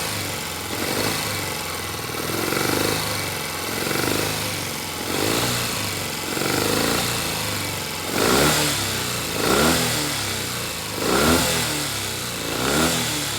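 Norton parallel-twin motorcycle engine running and being revved in repeated swells that rise and fall back, stronger in the second half. Its left cylinder is misfiring.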